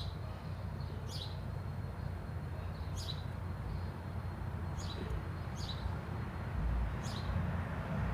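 A small bird chirping repeatedly, a short high chirp roughly once a second, over a steady low rumble.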